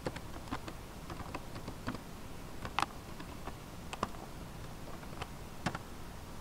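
Scattered single keystrokes on a computer keyboard, a dozen or so at an irregular pace: a sudo password being typed at a terminal prompt, with the Enter key pressed near the end.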